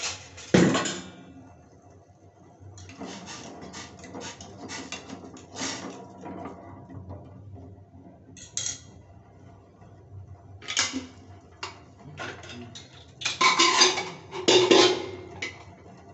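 Eggs knocking and clinking against the bottom and sides of a stainless steel pot of water, in irregular clusters of sharp knocks. There is one loud knock about half a second in, and the busiest, loudest spell comes near the end.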